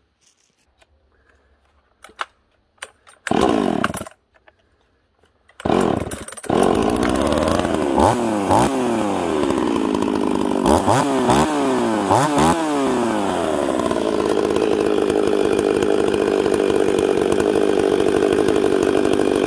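Husqvarna 44 two-stroke chainsaw being started: it fires briefly a few seconds in, catches on the next try about six seconds in, is revved up and down several times, then settles into a steady run.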